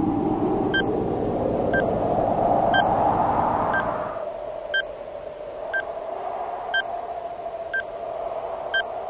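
Electronic countdown beeps, one short high beep every second, over a rising drone. About four seconds in the drone drops to a quieter, steady tone while the beeps go on.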